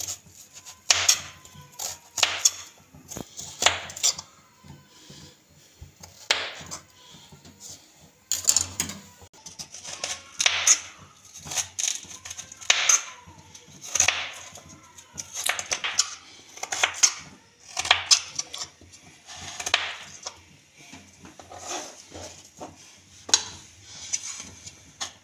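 Kitchen knife slicing raw potatoes into sticks for chips on a cutting board. Each cut ends in a sharp tap of the blade on the board, coming every second or two.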